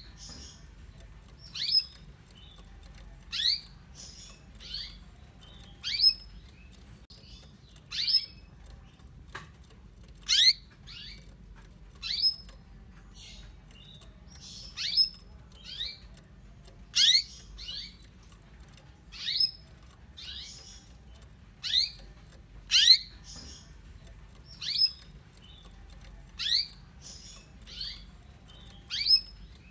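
Female domestic canary calling: short rising chirps repeated about every two seconds, each often followed by a fainter second note. It is a hen's call to a male canary, used to coax a reluctant male into singing.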